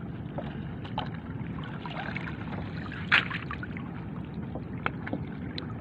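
Seawater sloshing and lapping around a person wading waist-deep while handling a bamboo-framed fishing net, with scattered small splashes, the sharpest about three seconds in.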